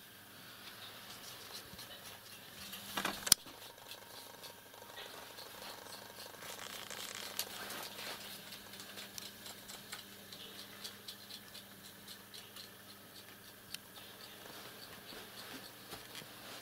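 Faint rustling and light clicking, with one sharp click about three seconds in, over a low steady hum.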